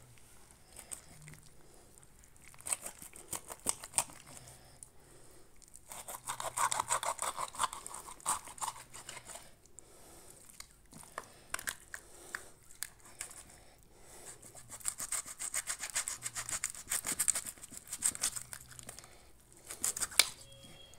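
Knife scraping and cutting flesh off a skinned goat head in quick rasping strokes, coming in bursts with short pauses between.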